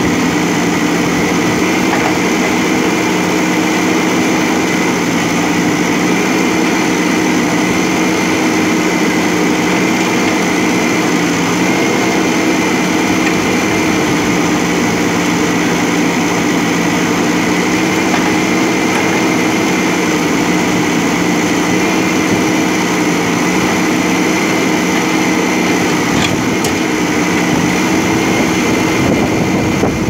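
JCB 3DX backhoe loader's diesel engine running steadily while the backhoe arm digs: a constant engine drone with a few steady tones that barely change in pitch.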